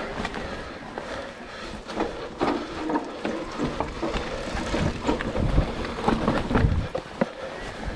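Mountain bike being ridden over a rough trail: tyre noise and irregular rattles and knocks from the bike, with gusts of wind on the microphone.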